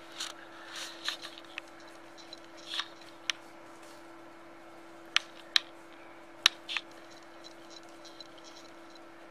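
A crisp ₹2000 banknote being folded and creased by hand: soft paper rustling with several sharp crackles, the loudest about five and six and a half seconds in. A steady low hum runs underneath.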